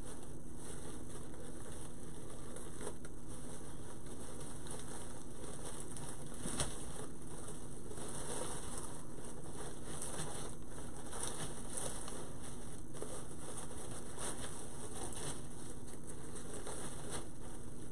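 Ribbon bow loops rustling and crinkling as they are handled and fluffed, with one brief click about six and a half seconds in, over a steady background hiss.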